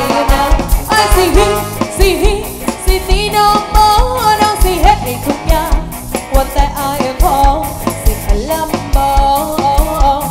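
Live amplified band playing: a woman sings lead over a drum kit with a steady kick-drum beat, electric guitars, electric bass and keyboard.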